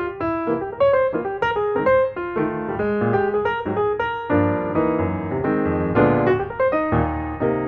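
Background piano music: a keyboard playing a flowing melody over chords.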